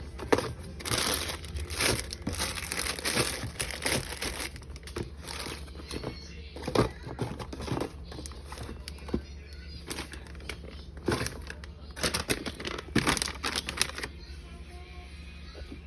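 Plastic snack packaging crinkling as packets are handled, in irregular rustles that stop about 14 seconds in.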